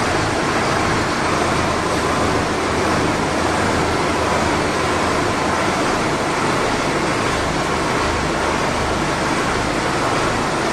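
Solis Yanmar 6024 tractor's four-cylinder diesel engine running steadily.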